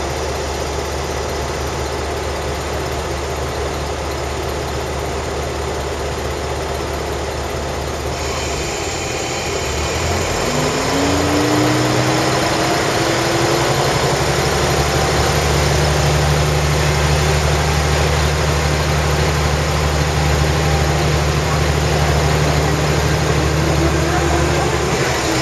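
Diesel railcar's engine running steadily, heard from inside the cabin on a climbing mountain grade. About ten seconds in the engine note changes and grows louder with a rising whine, then holds at the higher level.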